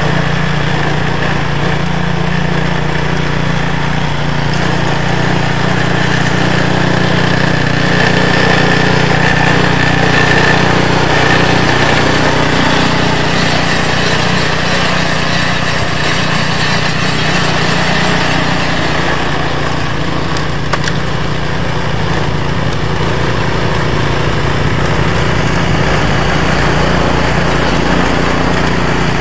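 REDVERG RD-SB60/950BS-E snowblower's Briggs & Stratton engine running steadily while the machine clears snow, its auger and impeller throwing snow out of the chute.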